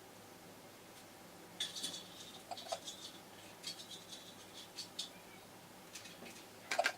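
Angled makeup brush applying bronzing powder: faint, short scratchy strokes of the bristles, coming in irregular bunches from about a second and a half in.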